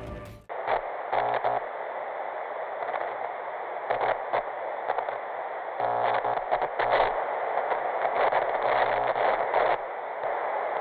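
Static hiss of a lost TV signal, cutting in abruptly about half a second in. It sounds thin and tinny, with irregular crackles and glitches.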